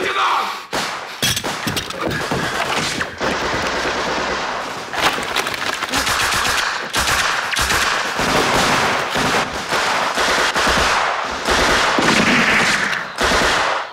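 Battle gunfire from a war-film soundtrack: rapid bursts of automatic fire mixed with single shots, dense and loud throughout.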